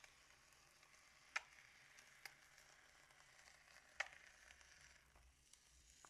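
Faint, crackling squish of white slime being squeezed out of a balloon, with a few sharp little clicks, the loudest about a second and a half in and again about four seconds in.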